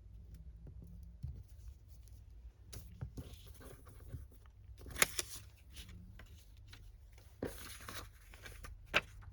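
Paper being handled: rustling and tearing in short stretches, with a few sharp taps, the loudest about five seconds in.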